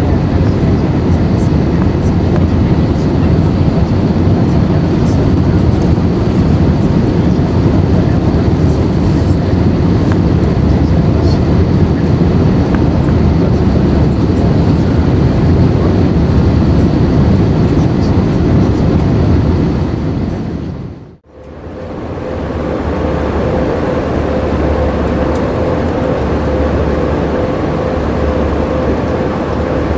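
Steady cabin noise of an Airbus A320 in flight, heard from inside the cabin: a loud, even roar of engines and airflow, heaviest in the low end. About three-quarters of the way through it dips away to near silence and swells back, and after that a steady hum tone sits over the roar.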